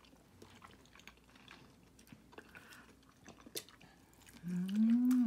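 Quiet chewing of food with scattered small clicks, then near the end a drawn-out hummed "mmm" of someone savouring the taste.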